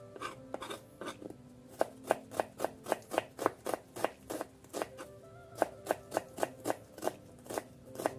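Kitchen knife slicing red onion on a wooden chopping board: quick cuts, about three to four a second, with a brief pause just before the middle. Faint background music plays under it.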